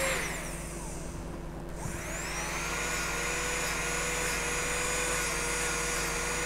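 Rotary glass-engraving drill with a hard black rubber wheel running against a crystal vase, giving a steady high whine. The whine falls away just after the start, returns with a rising sweep about two seconds in, then holds steady until it drops again near the end.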